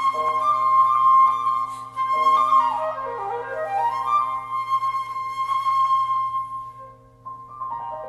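Concert flute playing a wavering high line with a quick descending run about three seconds in that climbs back up, over grand piano accompaniment. The flute drops away near the end and the piano carries on alone.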